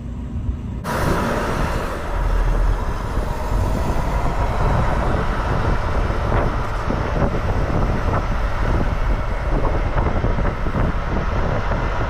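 Semi tractor-trailer running as it maneuvers, a steady loud rush of engine and outdoor noise that starts suddenly about a second in.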